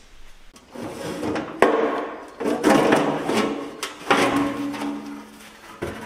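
Several clunks and knocks with scraping, from metal parts and tools being handled on a garden tractor, with a steady low hum coming in near the end.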